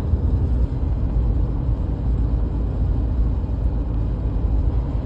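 Road and drivetrain rumble inside the cabin of a 2015 Subaru Outback coasting at speed, with a faint steady whine. The whine comes from a worn rear differential that had been driven thousands of miles with no oil.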